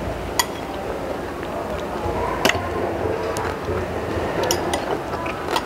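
Eating sounds close to a clip-on microphone: chewing, with several sharp clinks of a metal spoon and fork against a ceramic plate as rice is scooped up.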